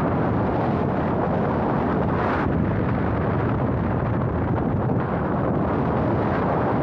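Strong amihan (northeast monsoon) wind buffeting the microphone, a loud, steady low roar, with a short hiss about two seconds in.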